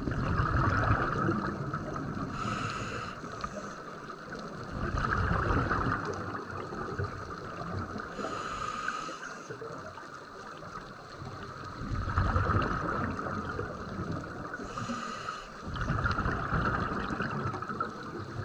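Scuba diver breathing through a regulator underwater: a short hissing inhale, then a longer bubbling exhale, repeating about every six seconds.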